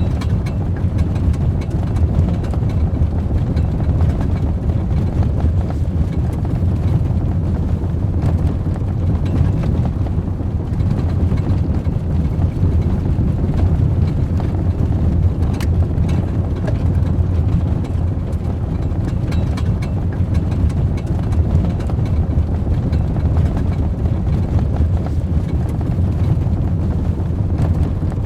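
Ford Raptor pickup truck's engine running steadily, a low rumble that holds at one speed without revving.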